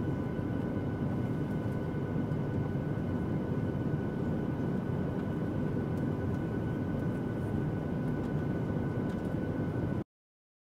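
Steady airliner cabin drone of jet engines and airflow during the descent to landing, with a few faint steady tones above it. It cuts off suddenly about ten seconds in.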